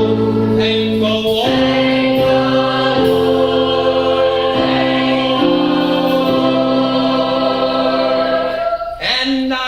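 Musical-theatre ensemble singing in choral harmony, moving through a few chords and then holding one long note that cuts off near the end.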